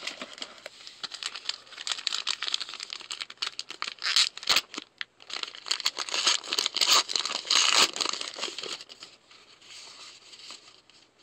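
Crinkling and tearing of a foil trading-card pack wrapper being handled and opened, with cards rustling, in irregular crackly bursts that are loudest in the middle and quieter near the end.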